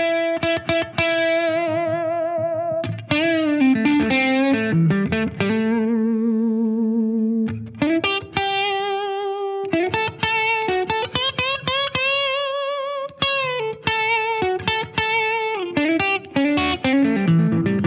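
Gibson SG Standard electric guitar played through an overdriven amp: a single-note lead line of picked runs and long sustained notes with wide vibrato and string bends.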